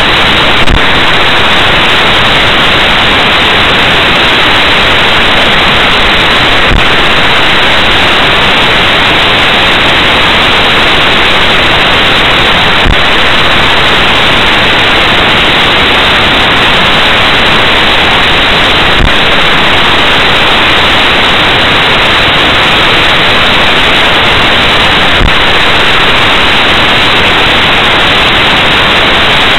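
Loud, steady static hiss from a dashboard camera's recording, with a faint click about every six seconds.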